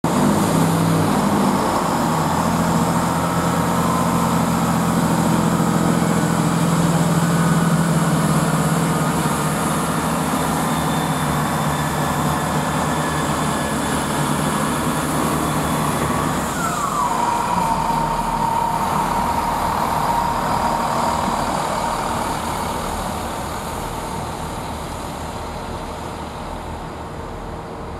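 Great Western Railway Class 165 diesel multiple unit pulling away, its underfloor diesel engines working under load. About 16 seconds in, a high whine drops in pitch and then holds steady, and the whole sound fades over the last few seconds as the train moves off.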